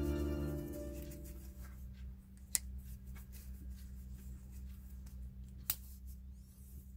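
Soft background music fades out over the first second and a half. Then comes quiet handling of a hinged silver link bracelet being wiped with a cotton cloth, with two sharp clicks about three seconds apart over a low steady hum.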